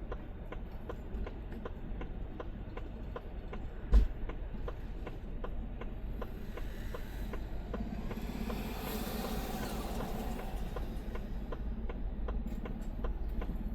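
A vehicle running slowly with a steady low rumble and a quick, even ticking, about four ticks a second. There is one sharp thump about four seconds in, and a broader rushing swell in the middle.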